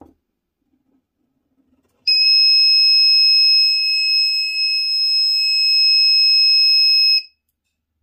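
Small electronic buzzer of a laser tripwire alarm sounding one steady, loud high-pitched tone for about five seconds, then cutting off suddenly. The SCR (BT151 thyristor) has been triggered by the interrupted laser beam.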